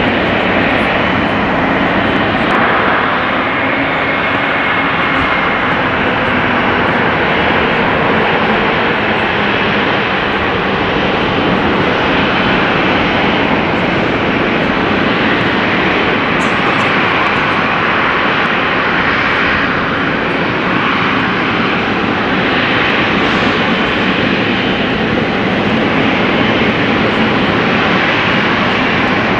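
Jet engines of a Boeing 737-800 running at taxi power, with a steady, loud rushing turbofan noise throughout.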